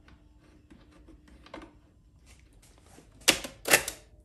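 Piano-key transport controls of a Califone 5230AV cassette recorder clacking as the keys are pressed and the cassette door springs open: a few small clicks, then two loud sharp clacks about half a second apart near the end.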